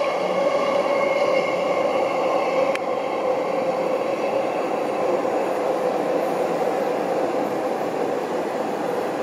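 Steady vehicle noise with a humming tone and a fainter higher whine that slowly fade.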